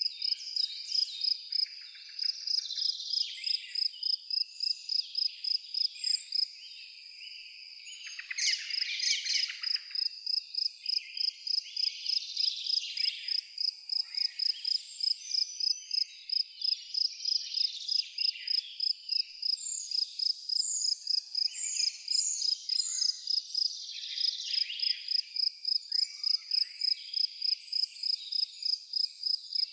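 An insect chirping in a steady high-pitched pulse, about three a second, with birds calling over it. The pulsing breaks off briefly around seven seconds in, followed by a louder call.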